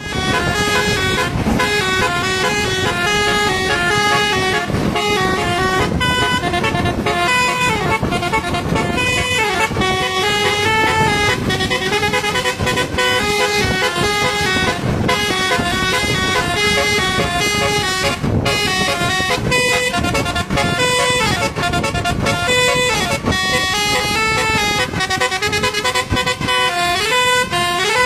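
Indonesian telolet basuri bus horn, a multi-trumpet air horn playing a melody: a continuous run of stepped horn notes changing pitch every fraction of a second, over steady background noise.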